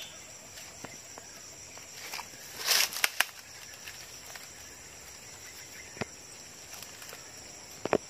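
Dry leaves and twigs rustle briefly about three seconds in as a shot bird is picked up from the undergrowth, with a few short sharp clicks later on. Under it runs a steady high insect buzz.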